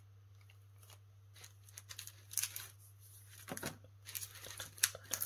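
Plastic packets of craft supplies being handled: rustling and crinkling with scattered light clicks and taps, starting about a second and a half in, over a steady low electrical hum.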